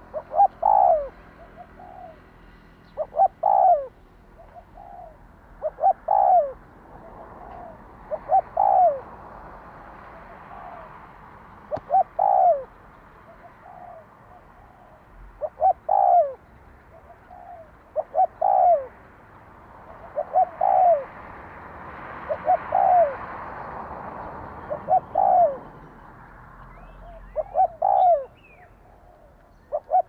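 Spotted dove cooing its song: a short phrase of two or three notes, repeated about every two and a half to three seconds.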